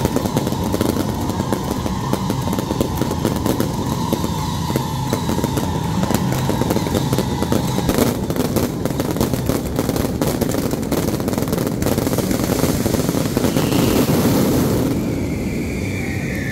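Fireworks show: many comets and fountains launching at once, making a continuous rushing roar thick with crackles. The crackling is densest about halfway through.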